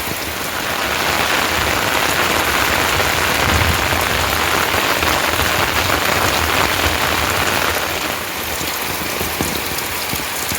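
Steady rain falling, a dense hiss of drops, swelling heavier from about a second in and easing back near the end.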